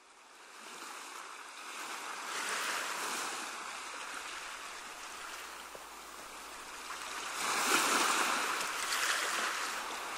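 Ocean surf washing onto a beach, fading in and swelling twice, about five seconds apart, as waves break.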